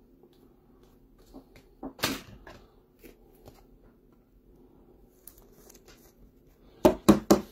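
Handling of a trading card and its clear plastic magnetic one-touch holder: a soft rustle and a click about two seconds in, then three sharp plastic clicks in quick succession near the end as the holder is snapped shut and handled.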